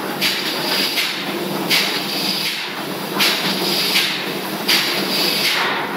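Loud, steady machinery noise: a low hum under a hiss that surges about every three quarters of a second.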